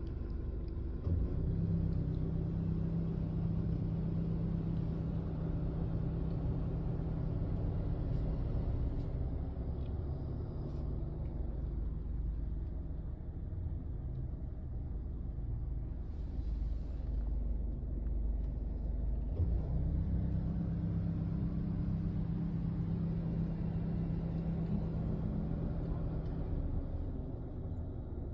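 A motor vehicle running while on the move: a steady low engine hum and road rumble that eases off in the middle and comes back strongly about twenty seconds in.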